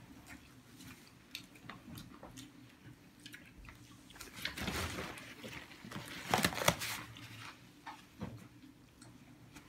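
Eating with bare hands at a shared spread: chewing and biting, with scattered small clicks and rustles of hands picking food off a plastic-covered table. Louder rustling bursts come about four and a half and six and a half seconds in.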